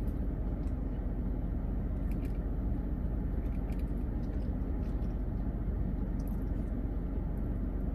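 Steady low rumble of a running car heard inside its cabin, with a few faint clicks of someone chewing a soft cookie.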